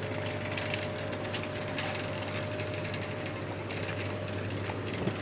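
A steady low mechanical hum under irregular clicking and rattling; a steady higher tone in it stops about four and a half seconds in.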